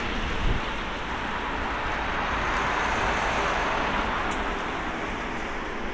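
Jet noise from an Airbus A380-841's Rolls-Royce Trent 970 turbofans as the airliner touches down and rolls out on the runway: a steady broad rush that swells a little in the middle, with a brief low thump about half a second in.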